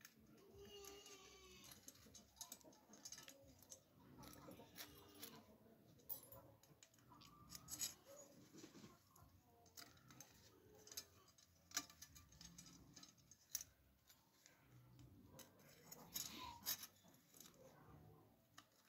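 Faint clicks and scratches of thin wire hooks being threaded through the holes of an old metal disc by gloved hands, with sharp irregular clicks every second or so.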